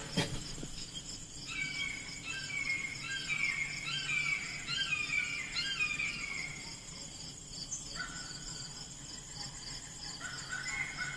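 Insects trilling steadily, with a run of short falling chirps about twice a second that stops about seven seconds in and starts again near the end.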